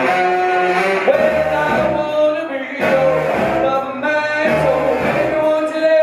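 Band music with a singing voice holding long notes.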